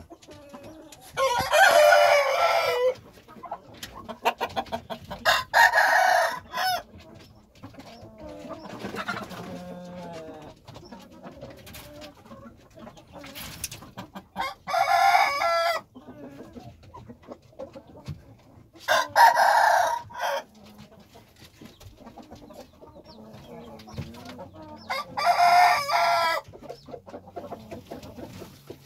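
Rooster crowing five times, each crow about a second and a half long, several seconds apart, with quieter clucking between the crows.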